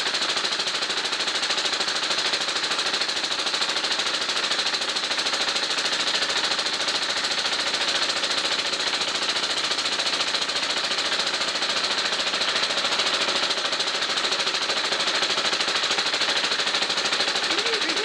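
Chaise Vega stationary engine running steadily, its firing a rapid, even train of sharp beats.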